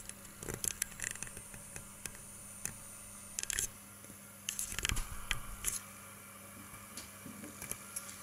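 Scattered light clicks and knocks of handling at a fly-tying vise with a hook clamped in its jaws, busiest about halfway through, over a faint steady hum.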